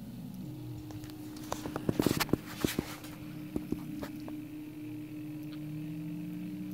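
Stepper motors of a polargraph drawing machine whining steadily, their pitch stepping and gliding as the motors change speed while reeling the pen gondola's cords. A quick run of sharp clicks and knocks comes about one and a half to three seconds in, with a couple more shortly after.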